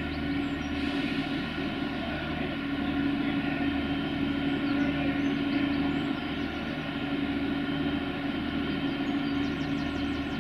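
Irish Rail 29000 Class diesel multiple unit idling while standing at the platform: a steady engine hum with a low throb that pulses about once a second.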